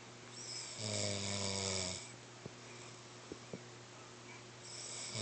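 Snoring: one low, buzzing snore lasting about a second and a half, starting about half a second in. The next snore begins near the end.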